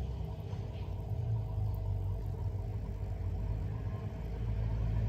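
Steady low mechanical hum, growing a little louder near the end.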